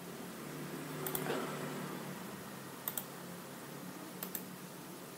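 Three short, sharp clicks from working a computer's mouse or keys, about a second and a half apart, over a faint steady low hum.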